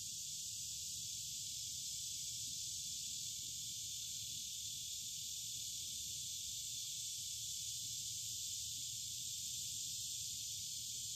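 Steady high-pitched insect chorus, an unbroken hiss that does not change, over a faint low rumble.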